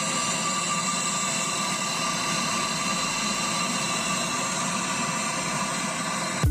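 Brazing torch flame hissing steadily as it heats a copper refrigeration line to desolder it. The hiss starts abruptly and holds at an even level.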